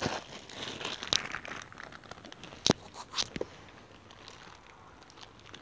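Rustling with scattered clicks and knocks of someone rummaging through objects by hand, the sharpest click a little under three seconds in.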